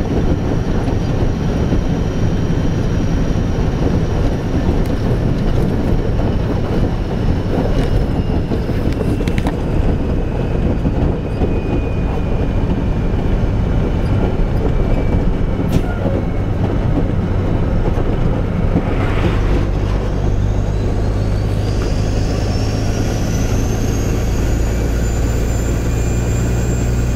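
A heavy truck's diesel engine running with road noise, heard from inside the cab. About two-thirds of the way through, the engine note grows stronger and a thin whine begins to rise steadily in pitch.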